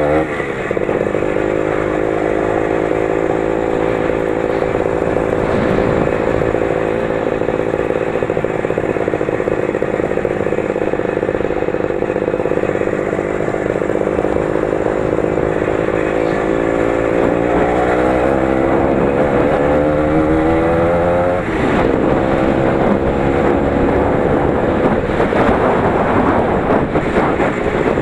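Engine of a 20 hp Lider 3.221 running under load off-road at fairly steady revs. About two-thirds through it revs up with a rising pitch, drops off briefly, then rises and falls unevenly.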